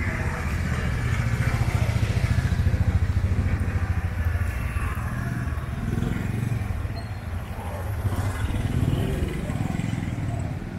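Motorcycle engine running close by, swelling as it passes in the first few seconds, with another swell about eight seconds in.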